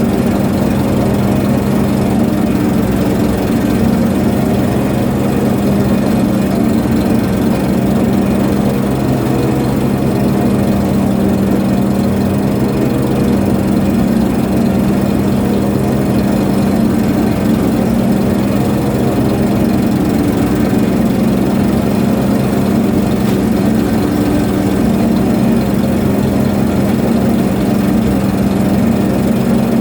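A ship's engine running steadily at constant speed, a loud even hum whose strongest tone sits low and never changes.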